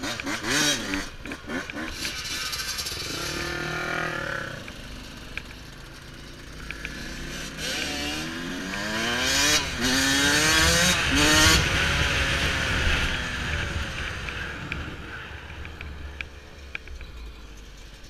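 Yamaha YZ125 single-cylinder two-stroke dirt bike revving and accelerating, with a few short revs in the first few seconds, then pulling up through the gears with the pitch climbing and dropping at each shift, then settling into a steadier, lighter run.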